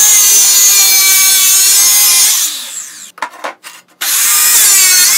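Electric circular saw cutting through steel rectangular tubing with a loud, high screech. About two and a half seconds in the cut eases off and the sound falls away, with a few brief knocks. At about four seconds the saw bites into the steel again at full screech.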